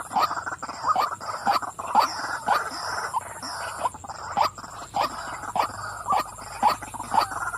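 Female white-breasted waterhen calling: a rapid, steady series of harsh 'wak' notes, about three a second.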